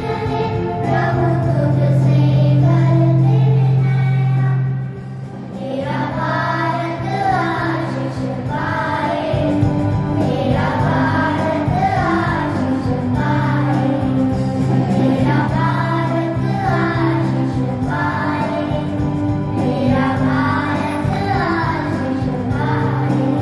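Children's choir singing a hymn over sustained instrumental chords, with a short break between phrases about five seconds in.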